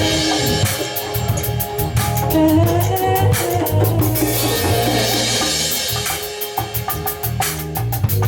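A band playing, led by a drum kit keeping a steady beat over bass and other sustained pitched instruments, with cymbal washes near the start and again in the middle.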